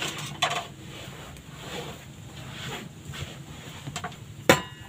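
A few light clicks and knocks, with one sharp knock about four and a half seconds in, over a faint steady hiss.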